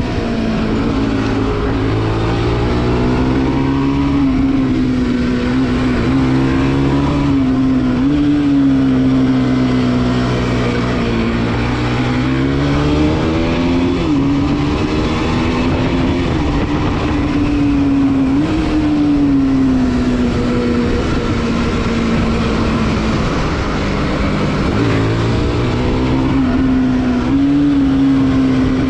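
Bajaj Pulsar NS 200's single-cylinder engine heard from the bike while riding at a fairly steady speed. The engine note wavers gently, with a few short rises and falls as the throttle opens and closes. Wind and road noise run under it.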